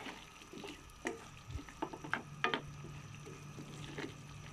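A plastic slotted spoon stirring chayote, onion and tomato in simmering broth in a nonstick pan, with several short scrapes and knocks of the spoon against the pan over a faint sizzle.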